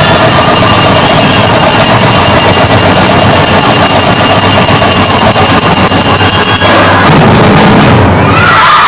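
Loud, distorted festival performance music with fast, even drumming and steady high squealing tones, cutting off suddenly about six and a half seconds in. A crowd begins cheering and shouting right at the end.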